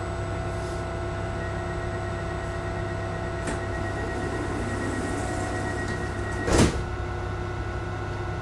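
Commuter train's sliding doors closing: a faint high tone sounds for a couple of seconds, then the doors shut with a single thump about two-thirds of the way through, over the steady electrical hum of the standing train.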